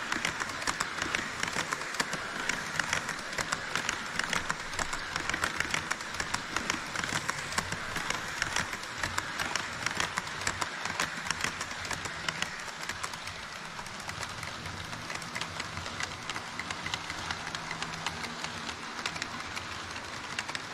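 HO scale model train running on KATO Unitrack: a steady rolling rattle of wheels with rapid clicking over the rail joints, louder for the first twelve seconds or so and then easing a little, with a faint low hum in the latter half.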